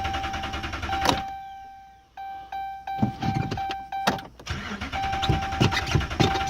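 2011 Ram 2500's Hemi V8 being cranked by the starter without firing, a fast rhythmic chugging that stops about a second in, then starts again a few seconds later: the truck won't start. A steady dashboard warning chime beeps on and off over it, with a few other chime tones in the pause.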